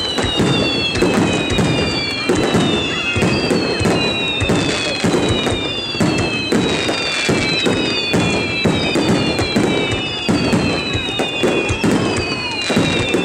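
Fireworks display: a rapid barrage of aerial shells bursting with repeated booms and sharp crackling. Over it runs a steady stream of overlapping high whistles, each falling in pitch.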